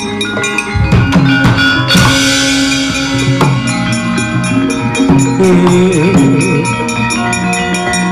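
Javanese gamelan ensemble playing accompaniment for a wayang kulit shadow-puppet play: many sustained, ringing metal tones layered together, with drum strokes cutting in about a second and two seconds in.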